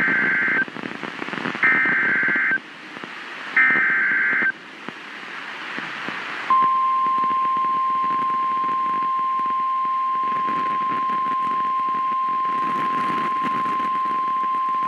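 NOAA Weather Radio Emergency Alert System signal: three short, shrill warbling bursts of SAME digital header data about two seconds apart. About six and a half seconds in, the steady single-pitch 1050-hertz warning alarm tone starts and is held to the end. Together they mark the start of a new warning broadcast.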